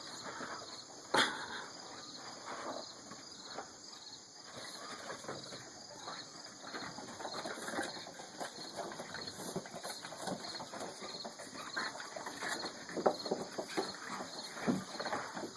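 Boston terrier puppies moving about: scattered scratching and rustling, with a sharper click about a second in and a few brief squeaks near the end.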